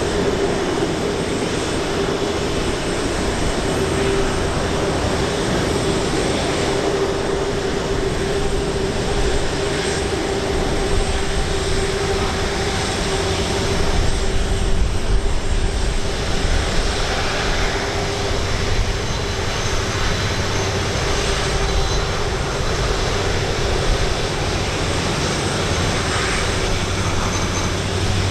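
Airbus A330-343 jet airliner taxiing, its Rolls-Royce Trent 700 engines running at low taxi power: a steady whine over a low rumble, the whine easing somewhat after the first ten seconds or so.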